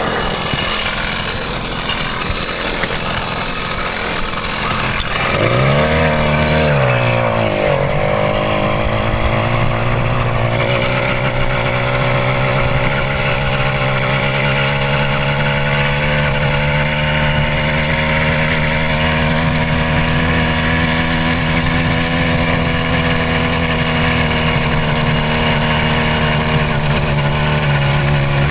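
A 66cc two-stroke motorized bicycle engine running under way. About six seconds in it revs up and back down in a quick swell, then holds a steady note.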